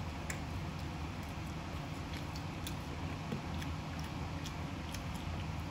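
Eating sounds of buffalo chicken wings being eaten by hand: chewing, lip smacks and meat being pulled off the bone, heard as small scattered wet clicks over a steady low room hum.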